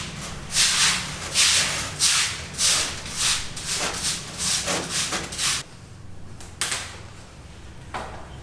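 Repeated rasping, scraping strokes, roughly one or two a second, that stop about five and a half seconds in, followed by a few separate knocks.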